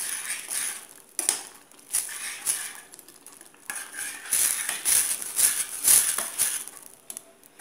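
Metal spoon stirring cooked beans in a stainless-steel saucepan, scraping and clinking against the pan in irregular strokes, with a quieter stretch in the middle.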